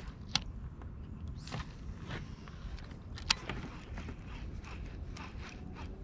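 Baitcasting reel being cranked to retrieve a bladed jig in a stop-and-go retrieve: the handle and gears give a run of soft, irregular clicks, with two sharper clicks, one near the start and one about three seconds in.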